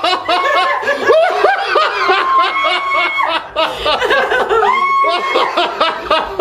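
Several people laughing and giggling, with overlapping chatter.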